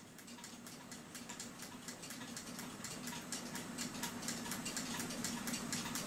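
Many small, rapid metallic clicks and ticks from handling the brass cuckoo clock movement and working its parts, growing a little louder toward the end, over a faint steady hum.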